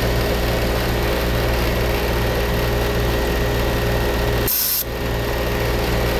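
Steady machine hum of running air-conditioning condensing units, with a short sharp hiss about four and a half seconds in: refrigerant escaping as the Schrader valve on the service port is depressed for an acid test.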